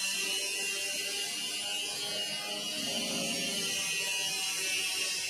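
Steady high-pitched machine whir with a hiss, like a small electric motor running without a break.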